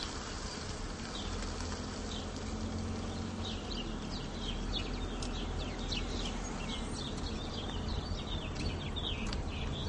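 Steady low rumble of a car moving slowly, heard from inside the cabin. From about three seconds in, birds chirp rapidly outside in many short rising and falling notes.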